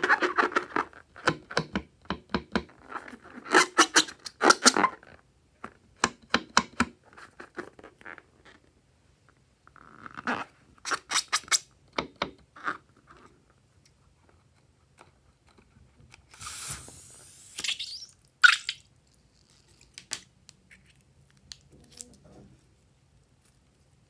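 Filled rubber balloon squeaking and rubbing under fingers as it is squeezed: a dense run of sharp squeaks for about five seconds, then scattered ones. A short rushing hiss comes about two-thirds of the way through.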